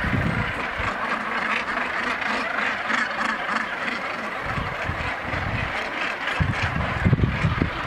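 A northern gannet colony calling, many harsh, grating calls overlapping into a constant din. Wind buffets the microphone in gusts at the start, about halfway through and again near the end.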